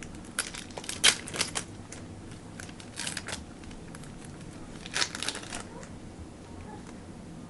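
Trading cards being flipped and slid against one another by hand: three short bursts of quick rustling clicks, about a second in, at three seconds and at five seconds.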